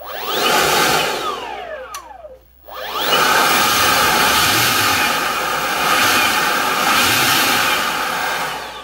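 EGO LB5300 56V brushless leaf blower running on its repaired controller: the fan spins up, runs loudly for about two seconds and winds down with a falling whine, then starts again about three seconds in and holds steady at full speed before winding down at the end.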